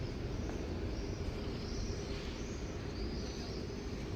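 High chirping calls, each rising and falling, repeating about once a second over a steady low rumble of street noise.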